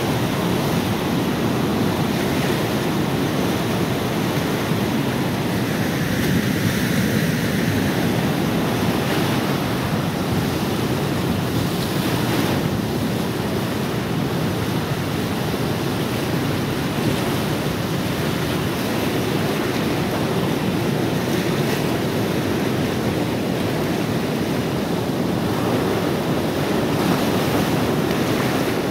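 Swollen River Nene floodwater rushing and churning, a steady roar of fast-flowing water, with wind buffeting the microphone.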